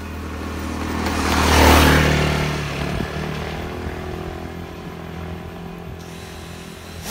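A motor vehicle passing on the road, rising to its loudest about one and a half seconds in and then fading, over a steady low engine hum.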